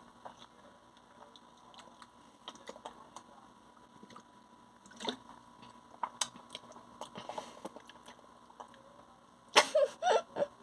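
Someone drinking water: faint scattered clicks and sips, with a louder run of gulps near the end.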